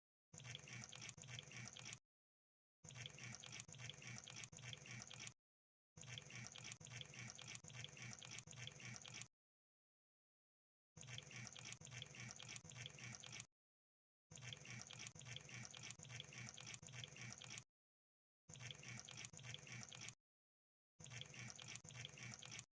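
Crab sound effect: seven bursts of rapid, wet-sounding crackling clicks, each lasting two to three seconds, with abrupt silent gaps between them.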